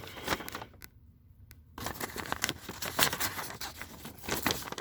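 Paper rustling and crinkling as a folded instruction manual is handled, in short crackles with a brief pause about a second in.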